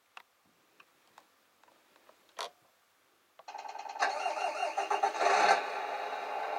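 Electronic sound unit of a Tamiya Scania R620 RC truck playing a simulated diesel engine start through its small speaker. A few faint clicks come first; about three and a half seconds in the engine sound starts up suddenly, runs louder for a moment, then settles into a steady idle.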